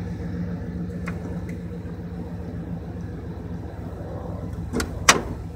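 1994 Chevy C1500's 5.7-litre 350 throttle-body-injected V8 idling steadily through its Flowmaster dual-chamber muffler, heard from inside the cab. Near the end, two sharp clicks, the louder second one the door latch opening.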